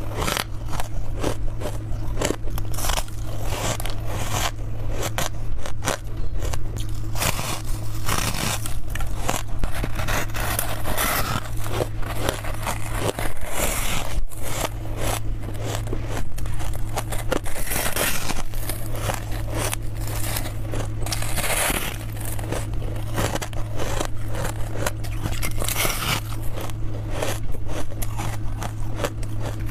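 Biting and chewing packed freezer frost: dense, rapid crunching and crackling that goes on without a break, over a steady low hum.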